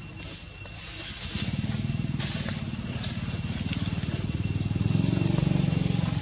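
A motorbike engine running nearby, starting about a second in and growing louder, then cutting off abruptly near the end.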